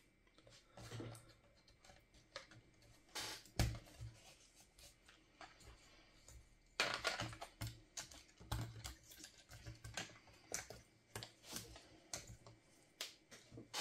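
Laptop parts being handled and worked on by hand during disassembly: irregular small clicks, taps and light scrapes, with a sharper knock about three and a half seconds in and a busier run of clicks from about seven seconds on.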